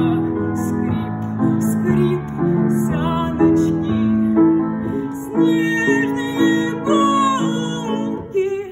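A song performed live: female voices singing a slow melody without clear words over instrumental accompaniment of held and plucked notes.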